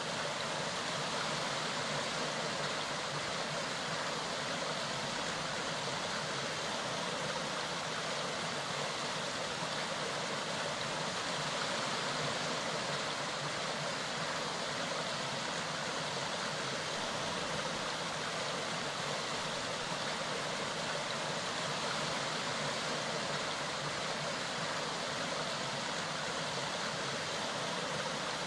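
Mountain stream running steadily, an even, unbroken rush of water.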